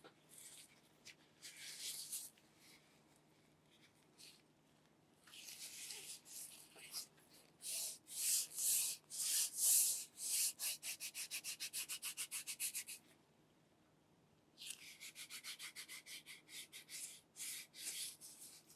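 Something being rubbed against a hard surface in quick back-and-forth strokes, in runs of about five strokes a second with a short pause between them.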